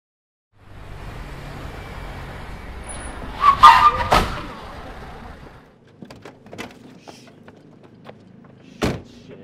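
Car engine running, with a brief screech and a loud impact about four seconds in: a car striking a pedestrian. Then a quieter hum with scattered clicks and one sharp knock near the end.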